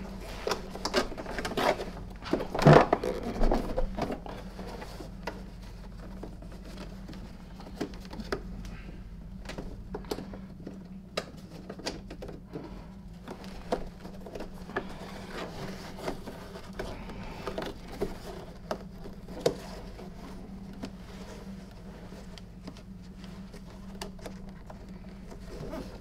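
Hands working a stretchy nylon sleeve onto the plastic Airbelt bumper of a SEBO canister vacuum. There are scattered light clicks and rustles, busier and louder in the first few seconds, then only occasional ticks over a faint steady hum.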